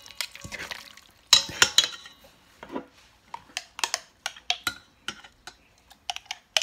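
Chopsticks and a metal spoon clattering against a stainless steel mixing bowl as raw duck pieces are tossed in marinade, loudest in the first two seconds. A run of lighter, quicker clinks follows as marinade is spooned onto the meat.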